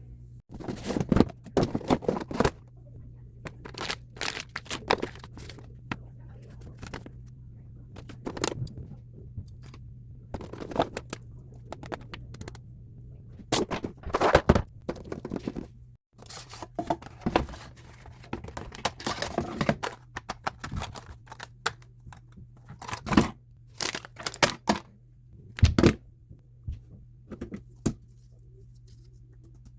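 Irregular handling noises from building a custom keyboard: sharp clicks and knocks of parts being set down and fitted, mixed with short crinkling and tearing rustles of packaging.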